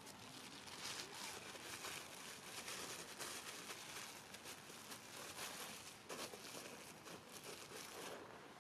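Crackling rustle of dry leaf litter and undergrowth, a dense run of small crinkles that fades out near the end.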